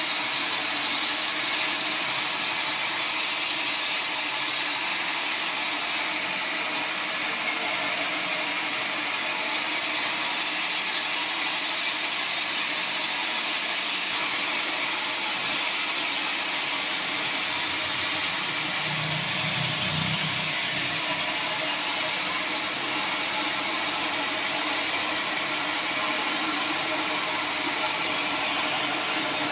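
Sawmill saw running steadily through the mahogany log, a constant, even, high-pitched machine noise with no let-up. A brief low rumble comes in about two-thirds of the way through.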